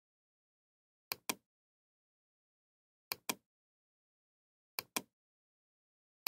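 Computer mouse button clicks, each a quick pair of clicks from the press and the release, coming three times about two seconds apart with silence between.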